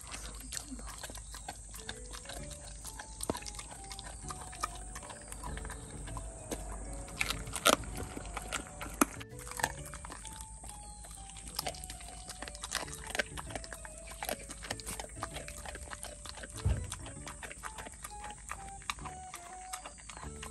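A pet chewing raw chicken, with many sharp crunches of bone, the loudest about a third of the way in, near halfway and near the end. A light background melody of short stepped notes plays under it.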